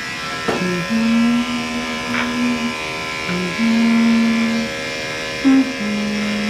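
Background music of held, slowly changing notes over the steady buzz of Andis electric dog clippers running.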